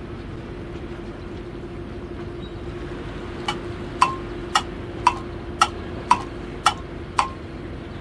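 A steady machine hum runs throughout. About three and a half seconds in come seven sharp metallic clanks, evenly spaced about half a second apart, each ringing briefly.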